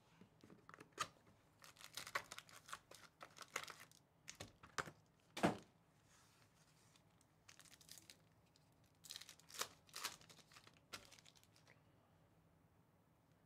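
A Panini Spectra basketball card box and its card packs being torn open by hand: bursts of ripping and crinkling of cardboard and pack wrappers. The loudest sharp rip comes about five and a half seconds in, and a second run of tearing and crinkling follows a few seconds later.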